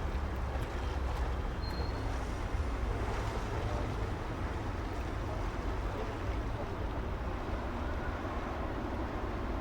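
Steady city traffic ambience: a continuous low rumble of vehicles with an even wash of street noise, and a brief high chirp about two seconds in.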